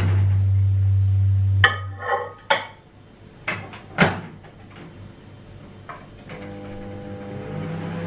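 Kenwood microwave oven's door unlatched with a click about one and a half seconds in, cutting off a steady low hum, then a few clinks and the door latching shut with a loud click about four seconds in. Near the end the oven starts running with a low hum that steps up louder, the repaired door now holding shut.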